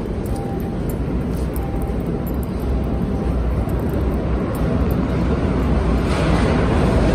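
Deep, steady rumble of a New York City subway train in the station, growing gradually louder; a rushing hiss joins about six seconds in.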